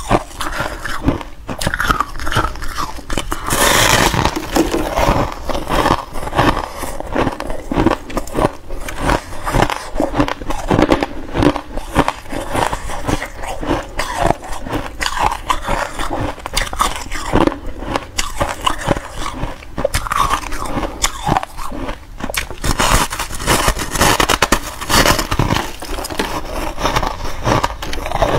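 Biting into and chewing a block of fluffy freezer frost: a dense, continuous run of crisp crunches, louder about four seconds in and again near the end.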